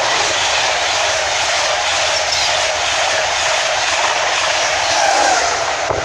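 LNER InterCity 225 train, hauled by Class 91 electric locomotive 91107 with Mark 4 coaches, passing non-stop through the station at speed. It makes a loud, steady rush of wheel and air noise that breaks off sharply near the end.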